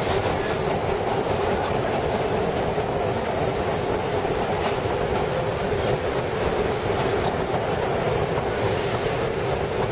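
Vintage R7A New York City subway car running on the track, heard from inside at the car's end: a steady, loud rumble and rattle of wheels and car body, with a couple of sharp clicks partway through.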